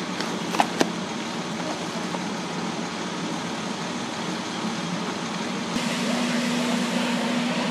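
Steady drone of fire engines running, with two sharp clicks under a second in. Near six seconds in it gives way to a louder, steadier hum from a fire engine close by.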